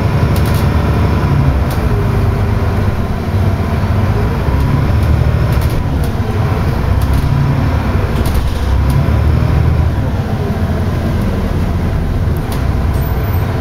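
Double-decker bus running along the road, heard from inside the passenger deck: a steady low engine and road rumble with a few short rattles and knocks from the body.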